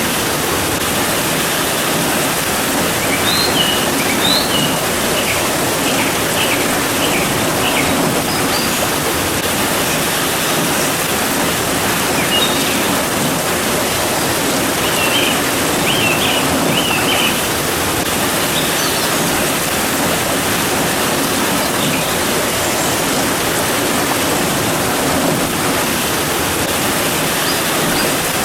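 Steady, even rain hiss. Small birds chirp in quick runs a few seconds in, again around the middle, and once near the end.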